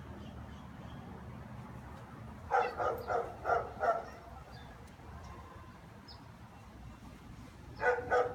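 German shepherd barking: a quick run of about five barks a couple of seconds in, a pause, then another run starting near the end.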